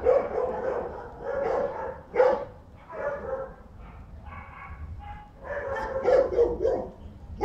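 Dogs barking and yipping in short bursts, the loudest about two seconds in, with a quieter stretch in the middle.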